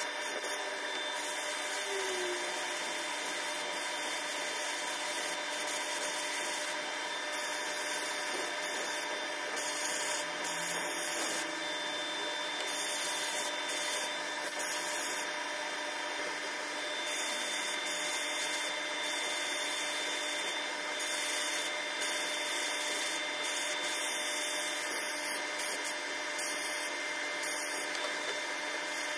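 Sandblasting cabinet's blast gun running continuously: a steady hiss of compressed air and abrasive grit stripping rust from small steel and brass parts.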